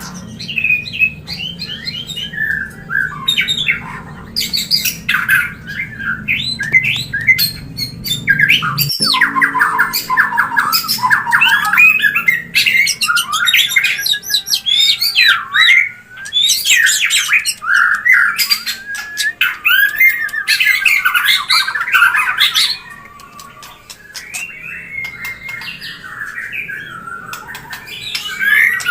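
White-rumped shama (murai batu) mating calls: rapid, harsh squawking chatter mixed with quick song phrases, the breeding-season calls played to bring a shama into breeding mood. A low hum underneath stops abruptly about nine seconds in.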